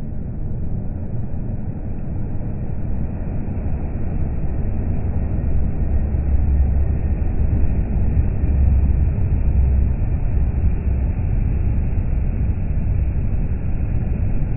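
A Volvo FH lorry pulling a curtainside trailer passes close by on a motorway. The deep rumble of engine and tyres swells to its loudest about halfway through and stays strong as the lorry goes by.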